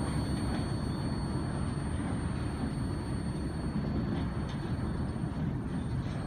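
Norfolk Southern freight train of flatcars loaded with truck frames rolling away on the rails: a steady low rumble of wheels on track.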